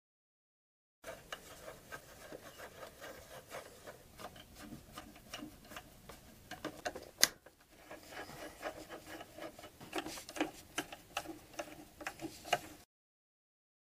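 A hand screwdriver turning and scraping on a terminal screw of an RV converter's distribution panel as a wire is fastened, with light clicks and rubbing and one sharper click about seven seconds in.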